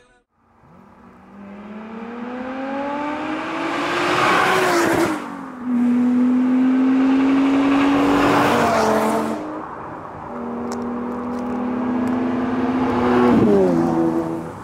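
Performance cars driving past one after another, each engine note rising as it accelerates closer and dropping in pitch as the car goes by. The two clearest pass-bys come about five seconds in and near the end.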